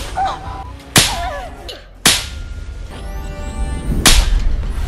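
Face slaps in quick succession: four sharp open-hand smacks, about a second apart and then after a longer gap near the end, with short cries after the first two and dramatic music under them.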